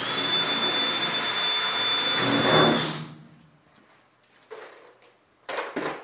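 Cordless drill running for about three seconds, drilling through the aluminium stiffener and wing skin, with a steady high whine that is loudest just before it stops. Two short knocks follow about a second apart as the drill is handled and set down.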